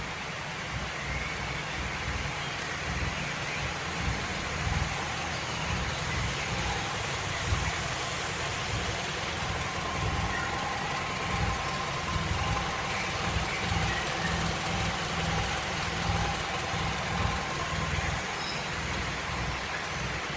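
Second-generation Honda Civic's inline-four engine idling, a steady low pulsing that is slightly uneven.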